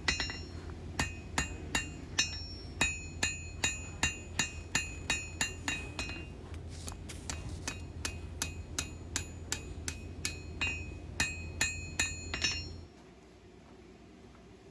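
Blacksmith's hammer striking a 1095 high-carbon steel bar on an anvil in a steady rhythm of about three blows a second, each blow with a short metallic ring, knocking the corners off the handle end to round it. The hammering stops near the end.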